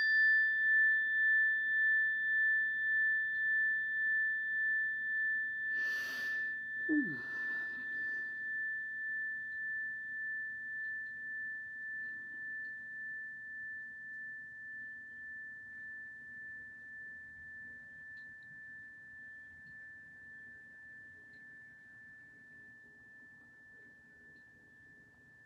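Single-bar metal chime on a wooden block, tuned to A, ringing out after one strike: a single high pure tone with a slow, even wavering, fading gradually until it is barely audible at the end. A brief noise about six seconds in.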